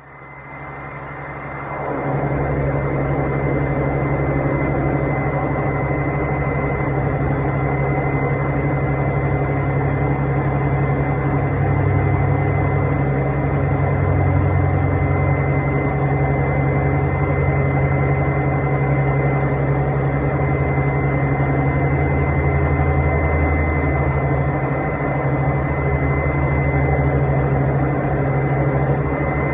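Honda car running with its air-conditioning fan, a steady mechanical hum with a thin high whine, building up over the first two seconds and then holding steady.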